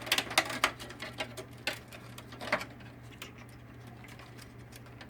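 Light plastic clicks and small knocks as a laser printer's fan bracket is pulled out and handled. They come thick in the first two and a half seconds, then fade to quieter handling over a low steady hum.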